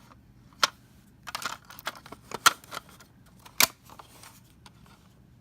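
Handling noise from a smoke detector and its 9-volt battery: plastic clicks and rattles, with three sharp snaps about half a second, two and a half seconds and three and a half seconds in.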